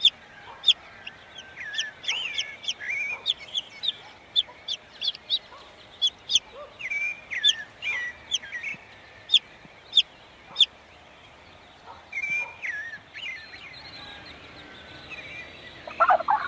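Baby chicks peeping: a string of short, high, shrill cheeps with quiet gaps between them. A few of the calls slide in pitch.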